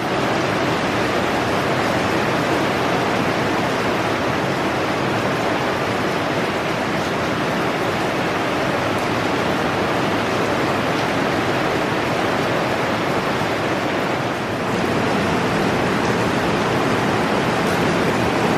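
Heavy rain pouring down steadily, a dense, unbroken hiss of downpour on a wet concrete patio and lawn.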